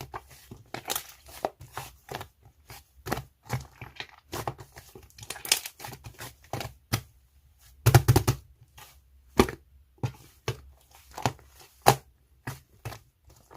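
Slime being squeezed, poked and stretched by hand, giving irregular sticky pops and crackles, with a burst of louder pops about eight seconds in.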